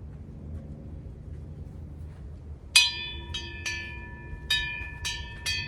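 A hanging metal bell, freshly repaired, is struck hard almost three seconds in and rings with a clear, lingering tone. It is struck five more times, more softly, in quick succession as it keeps ringing.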